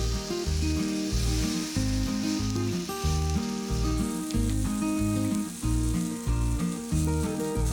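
Rice balls sizzling as they grill, a steady hiss, under background music with a steady bass beat.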